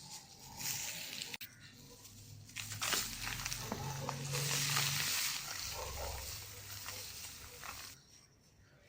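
Dry cement balls and cubes crumbling and crunching under hand pressure, a dense gritty crackle of many small cracks. It is loudest about three to five seconds in and dies down near the end.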